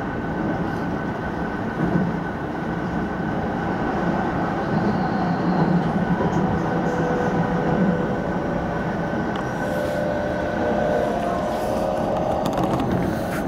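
Keihan 3000 series electric train running at speed, heard from the driver's cab: a steady rumble of wheels on rail under a thin, steady whine. An oncoming train passes close on the next track about six seconds in, and in the second half a faint whine rises slowly in pitch.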